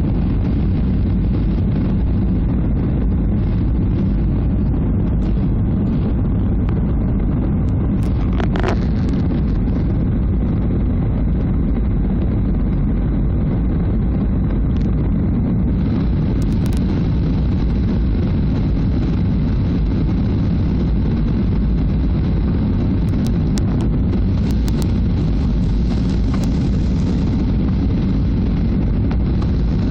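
Steady, loud rumble of a Boeing 737's engines and airflow heard from inside the passenger cabin during the descent on approach. A brief higher tone sounds about a third of the way in, and a few faint clicks come later.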